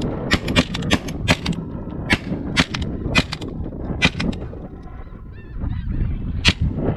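Shotgun fire at a passing flock of snow geese: a dozen or so shots in quick succession, most of them in the first two seconds and the last one about six and a half seconds in. Snow geese call overhead between the later shots.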